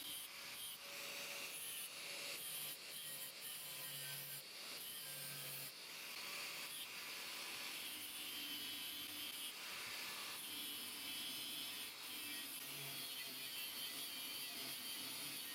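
Steady abrasive scouring of metal: rust being worked off an old steel hammer head, with a motor humming briefly now and then and the sound changing abruptly several times.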